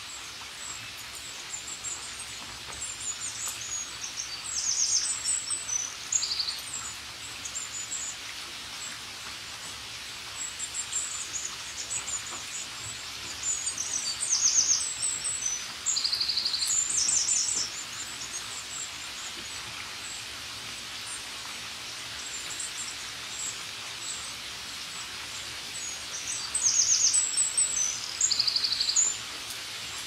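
Songbirds calling over steady rainfall. One bird repeats a high, rapid chirping phrase ending in a short buzzy note three times.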